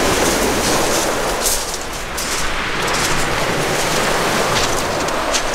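Sea surf washing up a flint-pebble beach: a steady, loud rush of waves.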